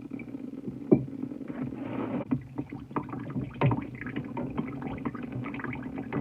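Water gurgling from a shutoff valve that will not fully close, running from the disconnected faucet supply line into a cup, with a few sharp clicks and knocks from the metal fittings being handled.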